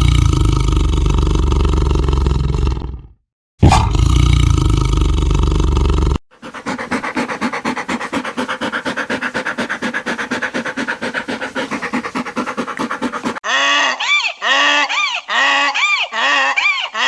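A series of animal calls. First come two long, loud, low roaring calls with a short break between them. Then a rapid, even pulsing call runs for several seconds, and near the end comes a run of short repeated honking calls, about two a second.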